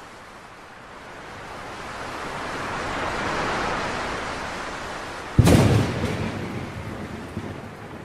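Cinematic whoosh-and-boom sound effect: a rushing swell builds over a few seconds, then a sudden deep boom hits about five seconds in and rumbles away.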